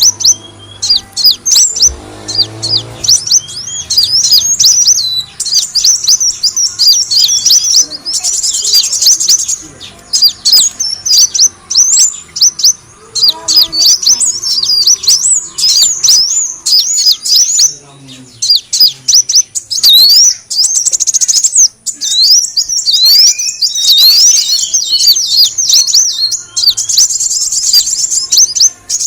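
Kolibri wulung sunbird calling: rapid runs of high, thin chirps and twittering trills, repeated with short breaks, as a bird-trapping lure call.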